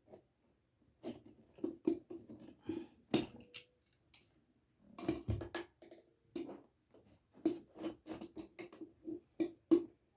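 Irregular clicks, taps and short scrapes of hands and tools working on a bicycle. A sharper click comes near the end.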